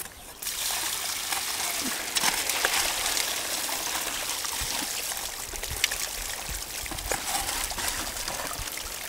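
Water poured from a bucket into a small metal gold sluice, running steadily down over the riffles and washing the gravel through. The flow starts about half a second in, with a few faint clicks over it.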